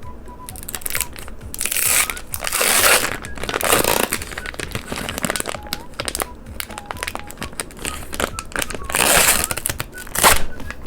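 Candy packaging being opened by hand: crinkling and rustling with many small clicks, and several louder crackling tears.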